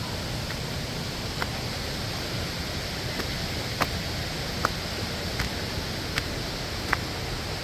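Steady rush of a waterfall, an even hiss of falling water, with a few short sharp ticks scattered through it about once a second in the second half.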